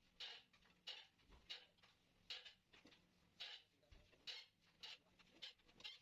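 Faint, regular short strokes of hand work on a car body panel, about one and a half a second.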